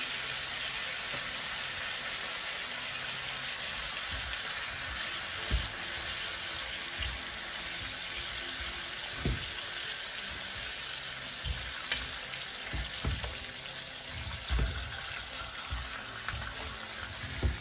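Pork chops sizzling steadily in a frying pan in a shallow pool of apple juice and fat, with several short knocks as a fork and spatula turn and move the chops.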